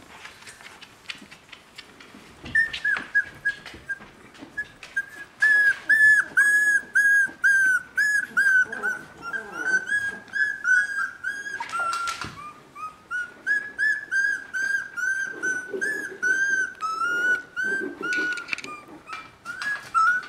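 Three-week-old border collie puppy whining in a long run of short, high squeals, about two a second, starting a couple of seconds in, with soft rustling of puppies on blankets.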